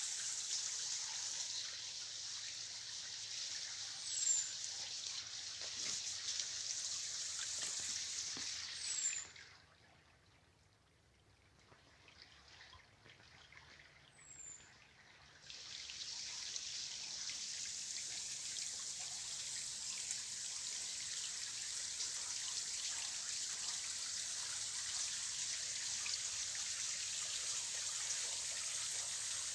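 Running water trickling and splashing in a steady hiss, with three brief high chirps from a bird. The water sound drops away abruptly for several seconds in the middle, then returns.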